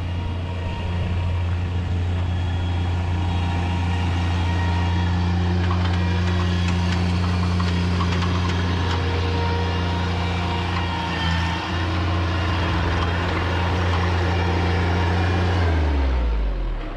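The engine of a heavy machine running steadily during driveway tear-out, with scattered cracks, scrapes and knocks of concrete being broken up. About sixteen seconds in, the engine drops in pitch and shuts down.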